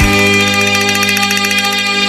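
Instrumental background music holding one sustained chord, with a fast, even tremolo shimmer in the upper notes.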